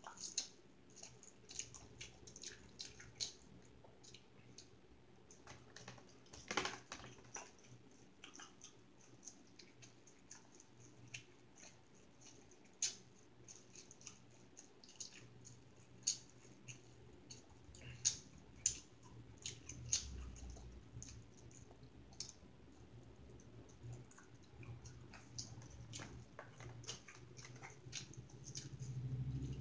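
A person eating soup: chewing, with scattered sharp clicks and smacks, over a faint steady hum.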